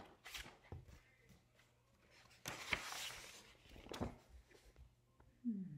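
Quiet handling of a picture book, with pages turned and the book shifted. There are a few light knocks and soft paper rustles, the loudest rustle about two and a half seconds in, and a brief falling sound near the end.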